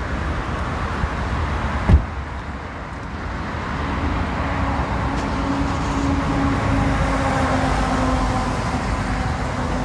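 A car running: a steady low rumble of engine and road, with one sharp thump about two seconds in and a steady engine hum rising from about four seconds.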